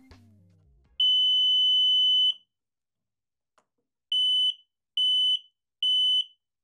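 Piezoelectric multi-tone buzzer indicator sounding one steady high-pitched tone for about a second and a half, then, after a pause of nearly two seconds, switching to its pulsing mode: short beeps at the same pitch, a little more than one a second.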